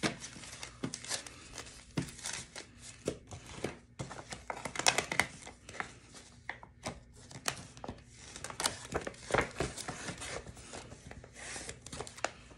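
Paper dollar bills rustling as a stack is handled and squared, then a plastic cash pouch crinkling and sliding on a stone countertop, with irregular small handling clicks and taps throughout.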